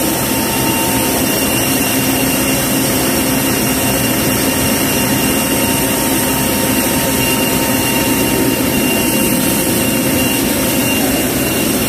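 Steady whine and rumble of an aircraft turbine, with a high tone that fades about eleven seconds in.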